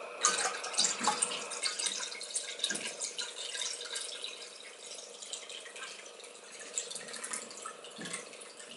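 Iron-water mordant poured in a thin stream from a glass jar into a glass bowl of water, a steady trickling splash that tapers off toward the end.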